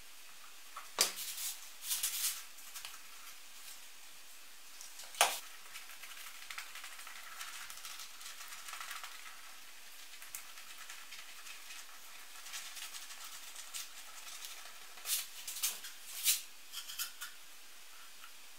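Small handling noises during a veneer glue-up: a few sharp taps and clicks about a second, two seconds and five seconds in, then a faint soft scratching of a brush spreading wood glue over oak veneer strips, and a cluster of clicks and knocks near the end as a plywood board is laid on top.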